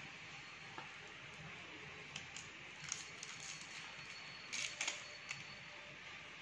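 A stick of Wrigley's Doublemint chewing gum being unwrapped by hand: small crinkles and crackles of the paper-and-foil wrapper, coming in two short clusters, about three seconds in and again a little before five seconds, over a steady faint hiss.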